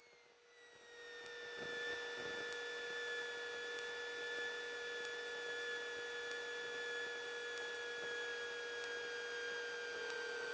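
Faint steady electrical hum on the aircraft intercom/headset audio, with a higher whine that falls slowly in pitch. The engine itself is hardly heard.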